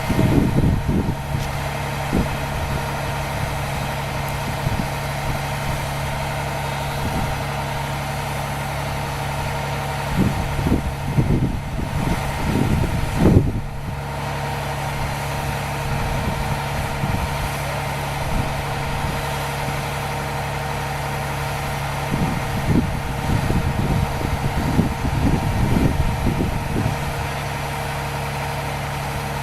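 Fire truck engine idling steadily on scene, with irregular low bumps breaking in, the strongest about 13 seconds in.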